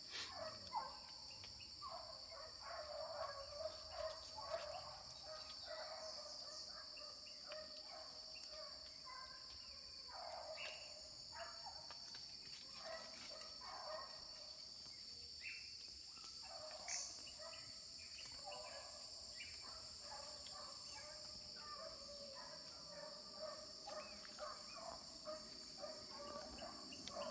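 Faint, steady, high-pitched insect chorus in forest, with scattered short animal calls throughout.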